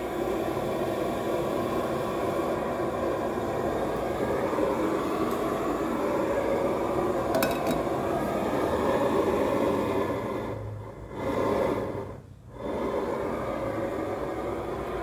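Steady rushing roar of a gas burner under a wok of oil, the oil heating for deep-frying. The roar drops away twice briefly near the end.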